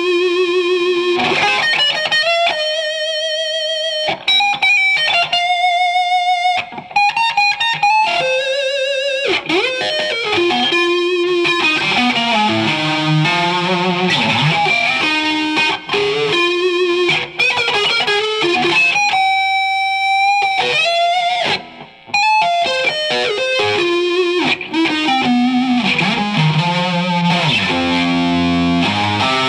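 Electric guitar played through two amplifiers at once, one clean and one overdriven by an Electro-Harmonix East River Drive pedal. Shrill, sustained lead notes with wide vibrato and bends, broken up by quicker runs, with one long held note about twenty seconds in.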